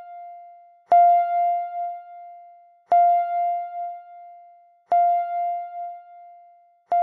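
Countdown timer's bell-like chime beeping four times, about every two seconds. Each is a single ringing tone with a sharp onset that fades before the next: the timer's final-seconds warning beeps.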